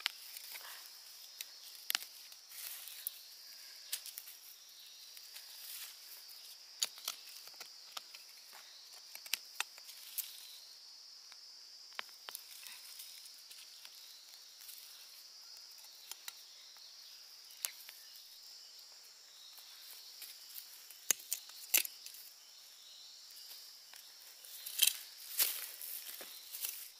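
Insects chirring in a steady high drone, with scattered sharp snaps and rustles on top and a cluster of louder ones near the end.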